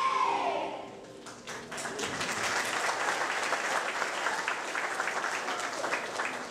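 Audience applauding a stage song, starting about a second in as the cast's last held sung note fades away.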